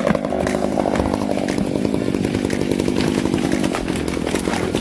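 Two-stroke chainsaw engine running steadily at a fairly even speed.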